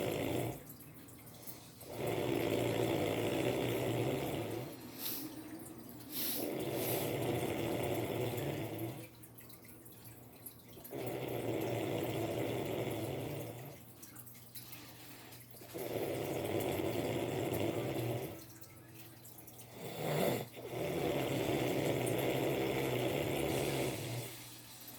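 Snoring in a slow, steady rhythm: five long noisy stretches of two to four seconds each, with short quieter pauses between them.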